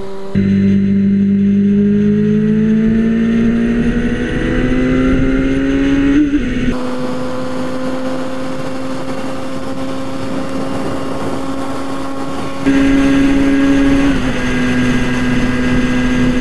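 Motorcycle engine pulling at highway speed: its pitch climbs steadily for the first six seconds or so, then holds steady, with wind noise underneath. It gets briefly louder and a little higher about three-quarters of the way through.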